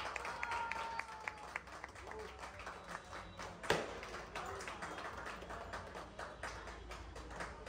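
Scattered hand clapping from a small group, with faint voices in the background.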